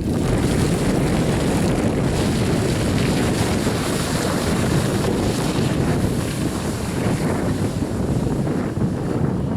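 An off-road SUV driving through mud, its engine and tyres blending into a steady rushing rumble, with heavy wind buffeting on the microphone.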